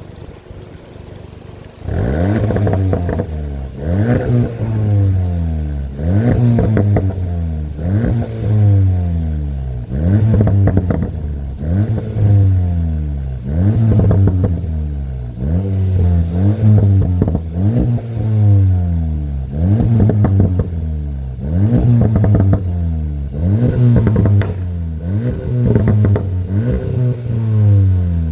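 SEAT Leon Cupra 290's turbocharged 2.0-litre four-cylinder being revved hard about every two seconds from about two seconds in, each rev rising sharply and falling back with pops and crackles from the exhaust on the overrun.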